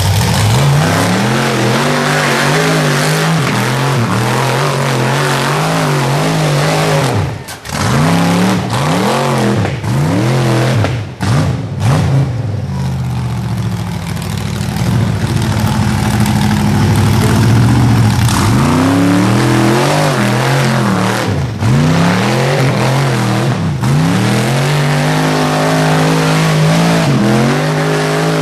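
Rock bouncer buggy's engine revving hard under load on a steep hill climb, the pitch rising and falling over and over with repeated throttle blips. Through the middle there is a stretch of several seconds of steadier, held revs.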